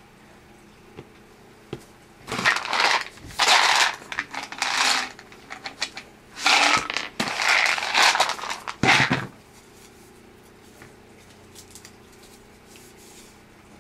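A plastic bottle being handled and shaken in a run of loud, irregular noisy bursts, stopping about two-thirds of the way in.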